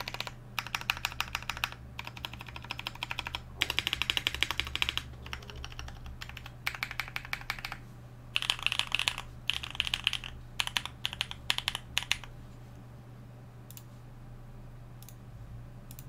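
Typing sound test of a custom KBD8X MKIII mechanical keyboard: Durock Blue Lotus T1 tactile switches under GMK doubleshot ABS keycaps, on a carbon fiber plate, top- and gasket-mounted with foam, built for a muted, lower-pitched sound. Bursts of rapid keystrokes with short pauses between them; the typing stops about twelve seconds in, leaving a couple of single key clicks.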